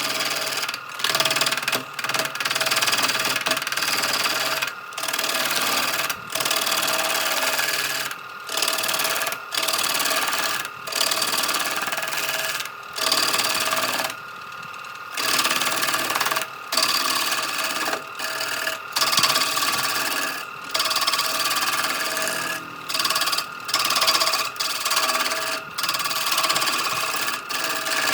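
Electric power tool with a steady motor whine, working wood with a rough abrasive rasp, cutting out briefly and abruptly every second or two.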